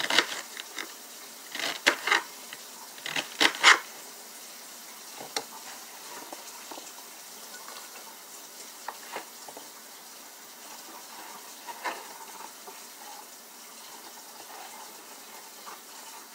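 Kitchen knife chopping celery on a cutting board: three quick runs of chops in the first four seconds, then only a few light taps and clicks over a faint steady hiss.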